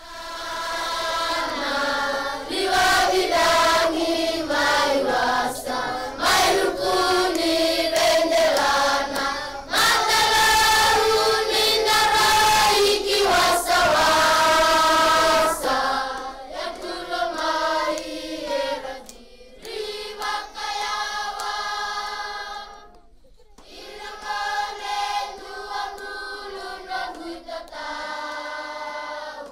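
A choir singing, with a brief pause about two-thirds of the way through.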